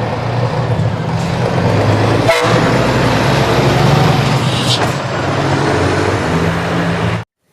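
Big truck sound effect: an engine running steadily and loudly, with a sharp knock about two and a half seconds in. It starts and stops abruptly.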